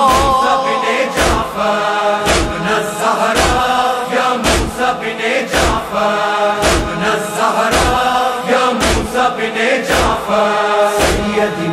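Noha lament: a group of voices chanting held notes over regular matam, hands striking chests in strong, even beats about once a second.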